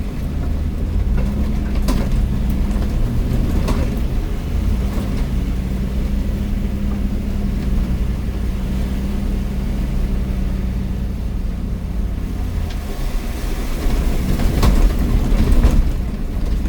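Ford Econoline van's engine running at low, steady revs while driving through deep river water, with a few sharp knocks and a louder wash of noise about two-thirds of the way through.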